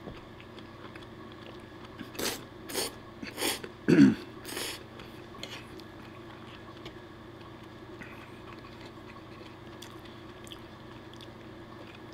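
A man eating pasta: a quick run of about six short, loud slurping and chewing sounds between two and five seconds in, the fourth the loudest, then quiet chewing with faint clicks of a fork against a wooden plate.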